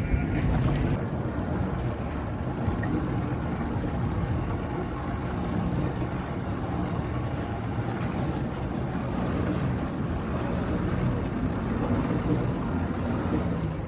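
Sea-Doo jet ski engine running steadily while it feeds a hydro-flight board through its hose. About a second in, water churning and splashing from the board's jets dies away. Wind buffets the microphone.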